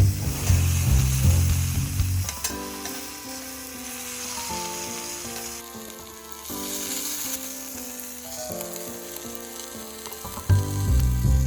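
Food sizzling and frying in an iron frying pan, a steady high hiss. Background music plays over it, with a bass beat at the start and again near the end and a melody in between.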